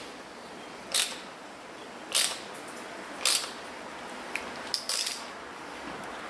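Thread tap being turned by hand into a freshly drilled hole to take a Helicoil insert, with a short burst of ratchet clicks about once a second as the tap handle is swung back between turns.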